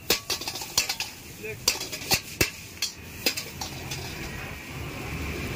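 Metal ladle and spatula clanking and scraping against an iron wok as noodles are tossed and stir-fried, over a sizzle. The clanks stop about three and a half seconds in, leaving a steady hiss and low rumble.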